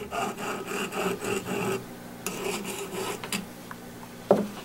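Half-inch aluminum oxide stone rubbed in quick short passes along the edge of a Ruger Mark IV's metal disconnector bar, about four strokes a second in two runs, breaking the corner to take off the burr. A sharp knock near the end.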